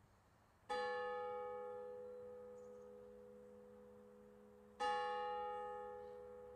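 A church bell tolling: the same bell struck twice, about four seconds apart, each stroke ringing on and slowly fading.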